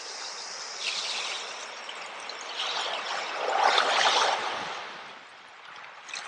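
Water trickling and splashing like a small stream, swelling loudest about four seconds in and then easing off.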